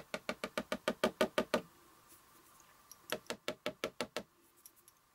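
Rapid, even finger taps pressing a sentiment stamp down onto card to transfer Versamark ink for embossing, about seven taps a second. There are about a dozen taps, then a short pause, then a second run of about seven.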